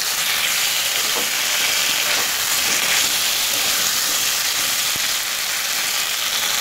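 Chunks of greater yam (kham alu) frying in hot mustard oil in a metal kadai: a steady sizzle as they are stirred and turned with a metal spatula.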